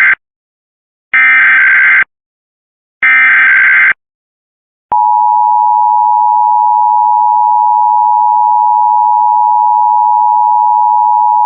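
Emergency Alert System test signal: the end of one burst of the warbling digital header data tones, then two more full bursts of about a second each. After a second of silence comes the steady two-tone attention signal, 853 and 960 Hz played together.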